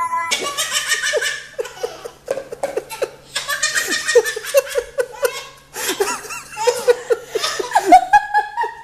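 A baby belly-laughing: quick, high-pitched laughs in about four long runs with short pauses between.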